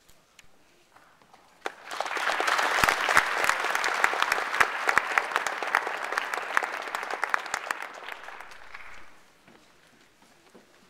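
Audience applauding: the clapping starts about two seconds in, holds steady with some sharp nearby claps standing out, then dies away about two seconds before the end.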